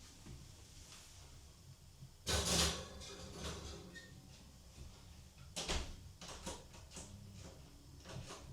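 Household handling noises: a louder scraping clatter lasting about half a second a little after two seconds in, then a sharp knock just before six seconds and a few lighter clicks, over a low steady background hum.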